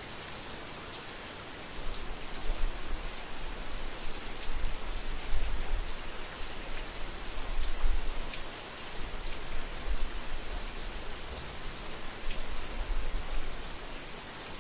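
Heavy rain falling steadily on a roof, a dense hiss with scattered sharp drop ticks. About two seconds in, a deep low rumble joins that swells and fades unevenly.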